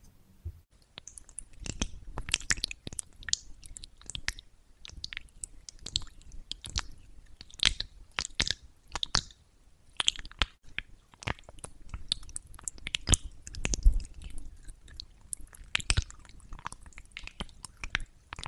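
Rose-petal jelly peel-off mask being pried up and peeled off a face by fingers: dense, wet, sticky crackling and squishing of the rubbery gel, starting about a second in.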